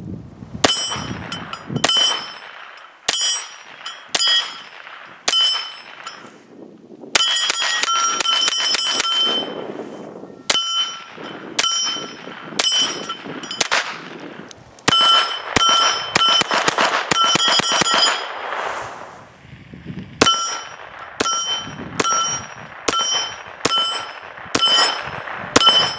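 .22 LR pistol fired over and over. Single shots come about a second apart, with two strings of rapid shots, and each crack is followed by a short metallic ring.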